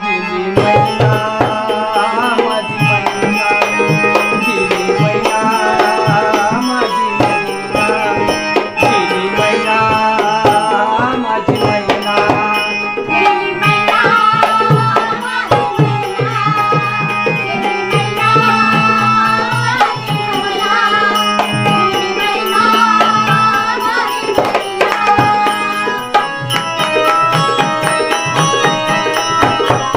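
Instrumental passage of a Marathi folk song: an electronic keyboard plays the melody over a steady dholki drum beat and the ring of small brass hand cymbals.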